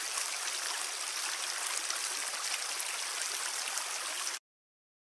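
Shallow, fast-flowing river running over stones: a steady hiss and rush of water that cuts off abruptly near the end.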